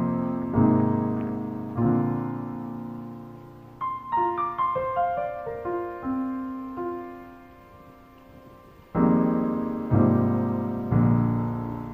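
Background piano music: slow held chords, a short run of single higher notes in the middle, then held chords again near the end.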